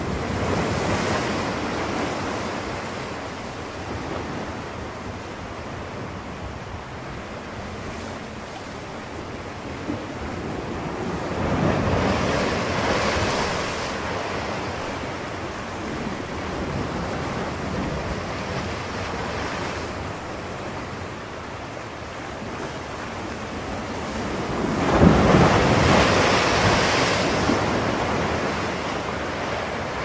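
Rushing surf of waves washing in, a continuous noise that swells and fades three times: about a second in, around twelve seconds in, and loudest around twenty-five seconds in.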